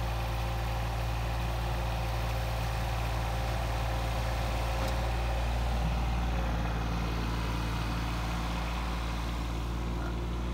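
John Deere 2210 sub-compact tractor's diesel engine running steadily.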